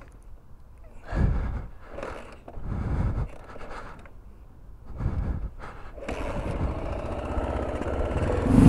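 1987 Honda XT600R single-cylinder engine on a slow off-road ride, with short bursts of throttle and then a steadier, gradually building run in the last couple of seconds.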